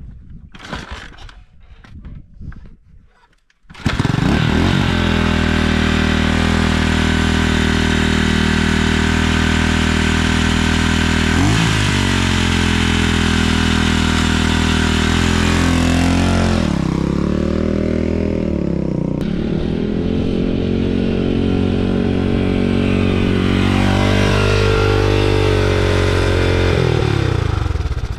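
1980 Honda XR500R's single-cylinder four-stroke engine being kickstarted: a few kicks, then it fires about four seconds in and runs loudly. Its revs rise and fall with the throttle, with a couple of dips, and it drops away near the end. It is running again after its carburetor needle and seat were replaced.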